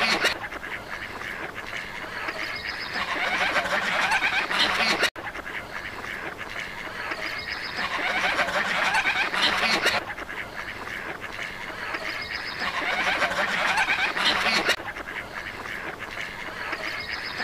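Many ducks quacking and chattering together, the calls swelling louder about every five seconds.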